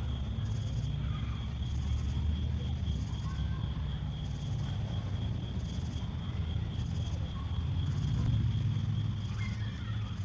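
Insects chirping in a steady, evenly pulsing high trill, over a constant low rumble.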